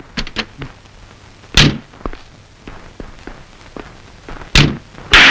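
Two heavy car-door slams about three seconds apart, with a few light clicks before the first.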